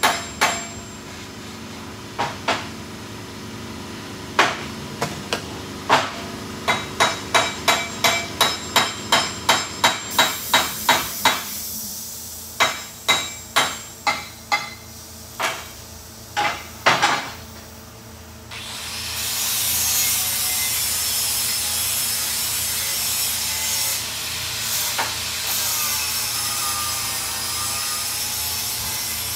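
Repeated hammer blows, each with a short ring, at times about two a second, stopping about 18 seconds in during an oil cooler repair. Then a steady rasping tool sound with a wavering whine takes over.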